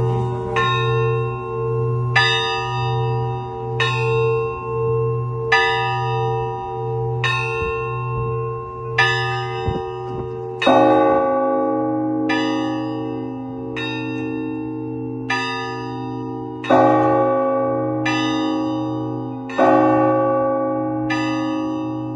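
Russian Orthodox church bells (zvon) rung by hand. Smaller bells strike in a regular rhythm over a sustained low hum from a larger bell. About ten seconds in, a louder strike brings in lower-pitched bells and the peal thickens.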